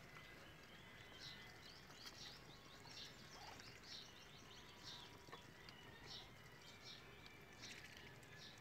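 Muscovy ducklings peeping: faint, short, high peeps that slide downward, about one or two a second.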